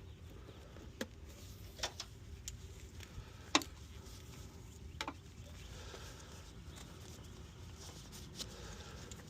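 A handful of sharp, separate clicks and taps a second or more apart, from test leads and tools being handled, over a low steady hum.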